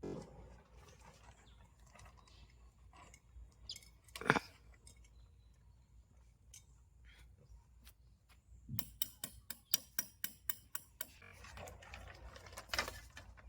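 Scattered clicks and knocks, with one sharp knock about four seconds in and then a quick run of clicks, about eight a second, for around two seconds.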